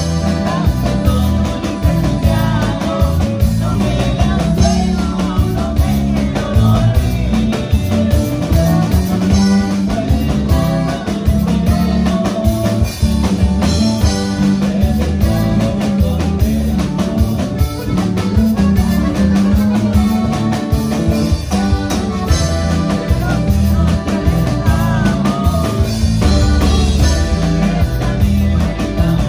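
A live norteño band playing: button accordion carrying the melody over a bajo sexto, electric bass and drum kit, with a strong steady bass line.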